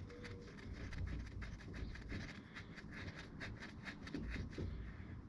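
Faint light clicks and scratching of a steel drain plug being threaded by hand into a motorcycle transmission pan.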